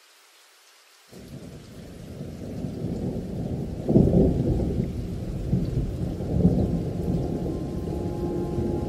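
Rolling thunder: a low rumble that sets in about a second in, swells to its loudest around four seconds and keeps rumbling. Held music notes begin near the end.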